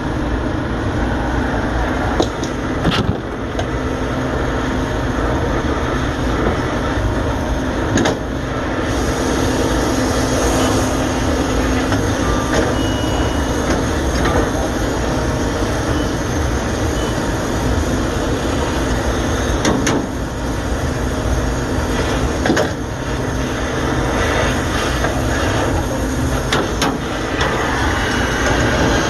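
Brazing torch flame hissing steadily on the copper joints of a liquid-line filter drier, heating them to unsweat the old drier, over a steady low hum. A few sharp clicks and knocks come through.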